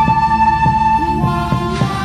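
Background music: held melodic notes over a drum beat.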